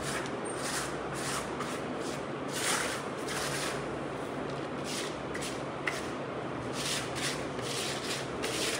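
Metal putty knife scraping and spreading coating over a textured plaster wall: short rasping strokes about two a second, with a brief lull in the middle.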